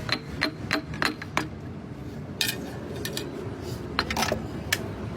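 Light metallic clinks and taps of tools on metal parts: about five sharp clinks in the first second and a half, then a few more spaced out, over a steady low rumble.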